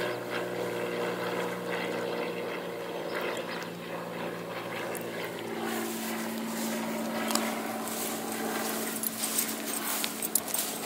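Steady hum of a distant engine, its pitch dropping about halfway through, with a few light clicks near the end.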